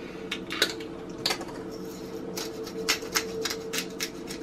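Hand spice grinder being twisted over a plate, its mill giving short sharp clicks, a few at first and then several a second from about halfway in, over a steady low hum.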